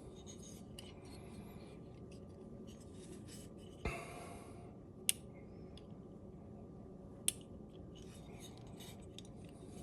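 Small metal parts clicking and rubbing as an AR-15 trigger group is worked into the lower receiver while the pin holes are lined up. A knock with a short rustle comes about four seconds in, and two sharp clicks follow about a second and two seconds later.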